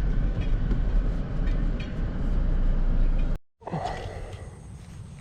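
Steady low vehicle rumble that cuts off abruptly about three and a half seconds in. After it comes much quieter open-air background with a faint, steady high-pitched whine.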